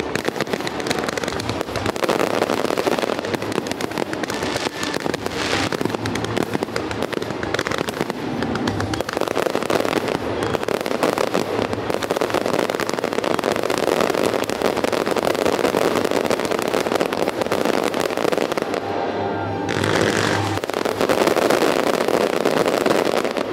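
Dense fireworks barrage: many aerial shells bursting and crackling in rapid, almost continuous succession.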